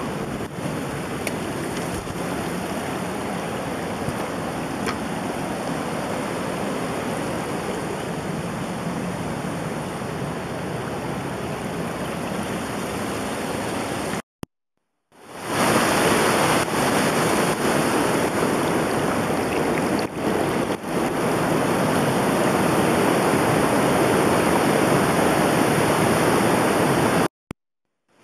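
Steady rushing water. It drops out twice in brief silences, about halfway through and near the end, and is louder after the first break.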